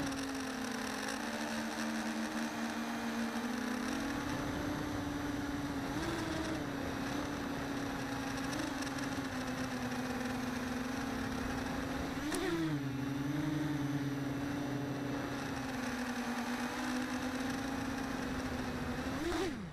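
Small FPV quadcopter's brushless motors whining steadily, heard close up from the craft's own camera. The pitch wavers and briefly rises several times with throttle changes. A sharp click comes about twelve seconds in, after which a second, lower tone runs alongside for a few seconds.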